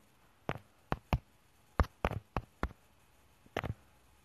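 A series of light, sharp clicks, about eight of them at irregular intervals, some in quick pairs, over quiet room tone.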